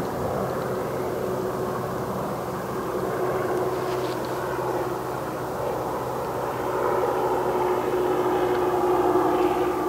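Cessna 172R light aircraft flying over: its four-cylinder piston engine and propeller drone steadily, growing louder as the plane comes close overhead.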